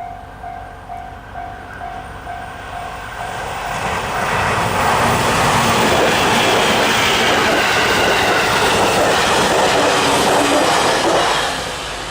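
Level crossing warning bell ringing about twice a second, then a seven-car JR 811 series and 813 series electric multiple unit passing at speed. The train builds from about four seconds in, stays loud for about seven seconds, and drops away near the end.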